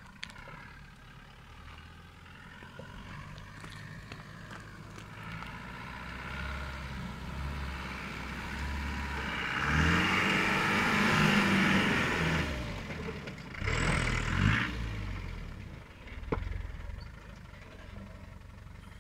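Land Rover Discovery 300Tdi's four-cylinder turbodiesel engine growing louder as it approaches on a loose gravel track. It revs up and back down as it passes close by, with tyres crunching on the stones, then gives a second short rev a few seconds later.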